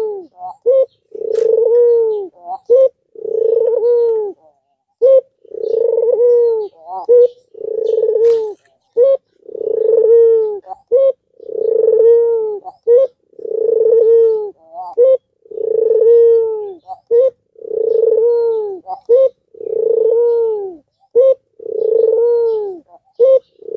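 Albino ringneck dove (Barbary dove) cooing over and over: a short note and then a long, rolling coo, repeated about every two seconds.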